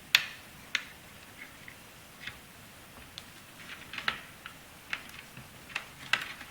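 Small sharp plastic clicks and taps from fingers handling a replacement laptop DC power jack and pushing its cable connector into the socket on the board, the sharpest click just after the start and a run of lighter ticks later on.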